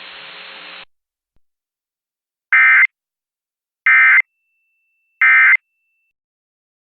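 Emergency Alert System end-of-message code: three short bursts of SAME digital data tones, about a second and a third apart, each with a harsh buzzy warble. They follow a second of radio hiss that cuts off.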